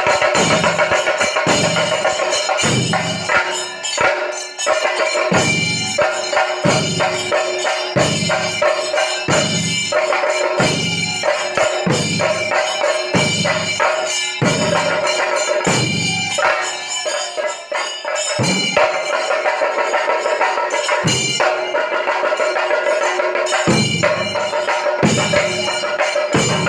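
Kerala temple procession percussion: drums beating a steady heavy pulse, roughly four strokes every three seconds, under a held high note and bright metallic ringing. The low strokes drop out briefly about two thirds of the way through.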